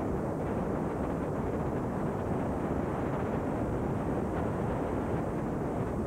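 Steady, dull rushing noise without any distinct events: tape noise from a VCR playing an unrecorded stretch of VHS tape.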